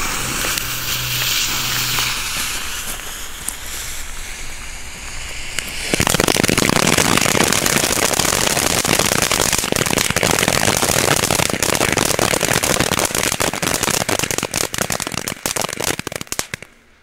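Blue Star ground fountains, small category F1 youth fireworks: first a fuse and fountain hissing steadily, then about six seconds in a sudden louder burst of dense crackling and popping stars that goes on for about ten seconds and dies away just before the end.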